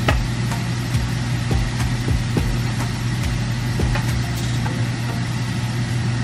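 Shrimp sizzling in a frying pan on an electric stove, with a spatula scraping and tapping the pan several times over a steady low hum.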